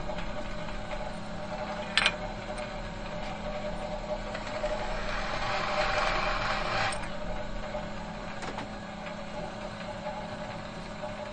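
Metal machine humming steadily with several fixed tones. There is a sharp click at the start and another about two seconds in, and a rushing noise swells up between about four and seven seconds in, then dies back.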